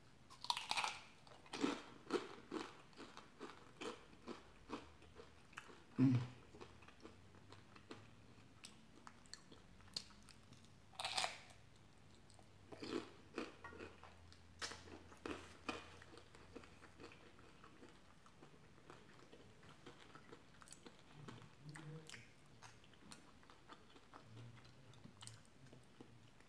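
Close-miked mouth sounds of biting into a crispy fried cream cheese rangoon and chewing it: crunches and wet chewing clicks, with louder crunches at about 1, 6 and 11 seconds in, thinning out to quieter chewing in the second half.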